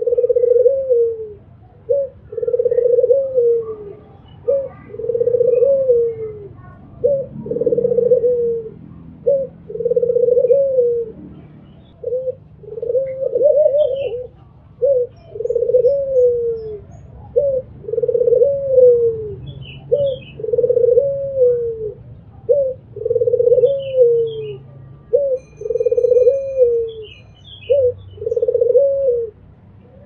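Albino Barbary dove (puter) cooing over and over, each call a short note followed by a longer falling coo, about once every two seconds. Faint chirps of small birds come in between calls in the second half.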